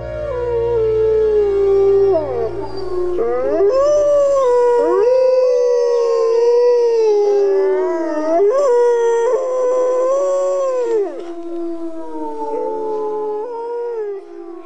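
Several wolves howling together in overlapping long calls that rise and fall in pitch. Low background music fades out under them in the first few seconds.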